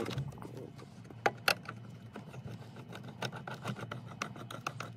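Phillips screwdriver turning out the screws of a Honda Civic's plastic steering-column cover: small scattered clicks and taps of metal on plastic, with two sharper knocks about a second and a half in, over a faint low hum.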